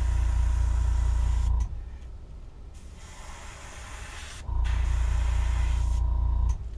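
Airbrush hissing as it sprays paint in short passes, stopping and starting several times. Under it, a small air compressor's motor hums loudly, cuts out a little under two seconds in, and kicks back on about four and a half seconds in.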